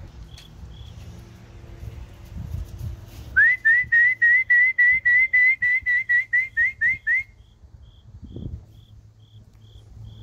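Human whistling: a quick run of about fifteen short, rising whistle notes, about four a second, starting about a third of the way in and lasting about four seconds. This is a pigeon fancier calling his racing pigeons down to the loft.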